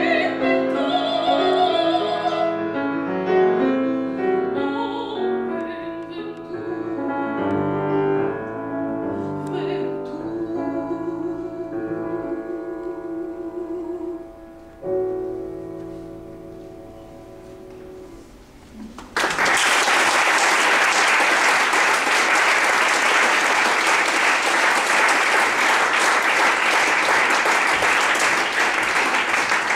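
Operatic soprano with grand piano accompaniment closing a classical song: the singing and piano lines end on a final chord about halfway through that dies away. A few seconds later an audience bursts into steady applause.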